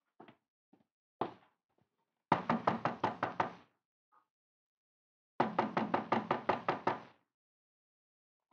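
Knocking on a door, a radio-drama sound effect: two runs of rapid knocks, about ten each, a couple of seconds apart, after a few soft single taps.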